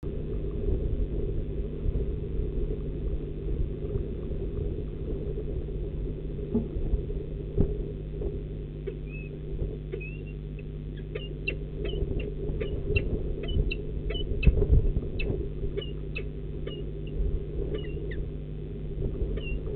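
A run of short, high bird chirps, about two a second, starting about halfway through, over a steady low rumble.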